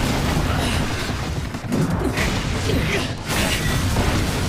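Loud action sound effects from an animated fight scene, dense and continuous, with several sweeping rises and falls.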